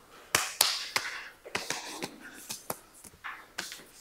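Palms slapping and tapping against forearms and elbows in a partner elbow-trapping flow drill, with clothing swishing between the hits. A run of irregular sharp slaps, the loudest two in quick succession within the first second.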